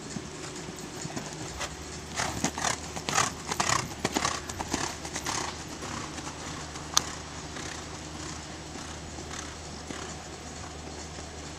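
Show-jumping horse cantering on a sand arena: a run of irregular hoofbeats, loudest between about two and five and a half seconds in, then a single sharp knock near seven seconds.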